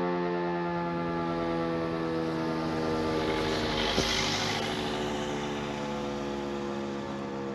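Rooftop civil defense siren sounding a steady wail that slowly grows quieter. About four seconds in there is a brief click and a short burst of hiss.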